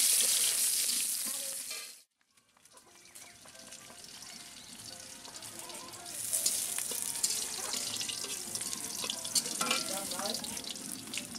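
Garlic and green chillies frying in hot oil in a wok, with a loud sizzle. It cuts off about two seconds in, comes back quieter, and grows louder again about six seconds in.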